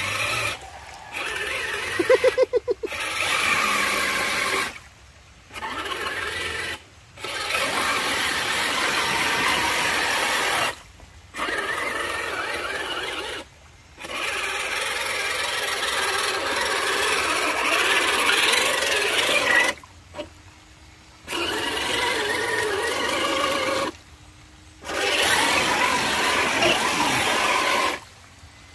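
1/10 scale RC Jeep Cherokee crawler's electric motor and gear drive whining and grinding as it drives through mud and water, in stretches of a few seconds that cut off sharply between them. A short, loud fluttering buzz comes about two seconds in.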